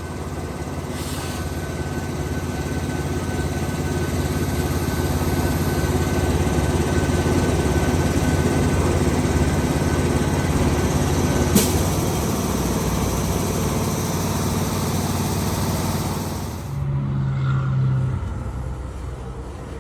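Vehicle engine running steadily, with one sharp click about halfway through; the engine sound stops suddenly near the end and a short, lower hum follows.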